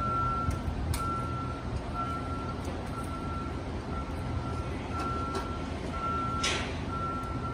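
Equipment warning alarm beeping steadily, about once a second, over the low rumble of a running heavy-equipment engine. A brief hiss comes about six and a half seconds in.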